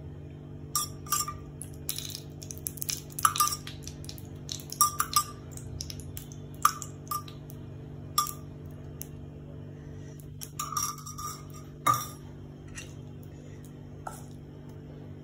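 A steel spoon clinking against a steel tumbler of oil while oil is spooned into a cast-iron appe pan. There are a dozen or so short, irregular clinks over a steady low hum.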